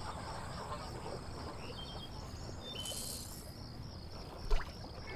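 Marsh evening ambience: insects, likely crickets, chirping in a steady rhythmic pulse over a low background rumble, with a few short faint bird chirps near the middle. A single brief sharp sound stands out about four and a half seconds in.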